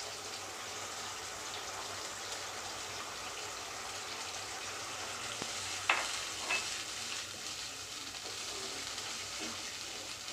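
Tomato puree cooking down in hot oil in a kadai, sizzling steadily as it thickens, with stirring. A sharp clack, like a spatula striking the pan, about six seconds in and a lighter one just after.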